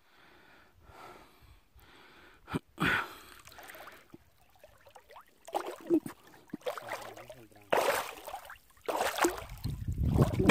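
Water sloshing and splashing in irregular bursts around a person wading through a reservoir, loudest near the end.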